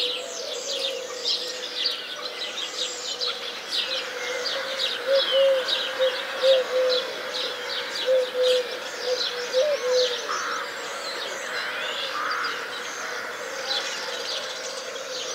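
Birdsong soundtrack: a dense chorus of quick bird chirps and trills over a steady low tone, which breaks into short warbling notes in the middle.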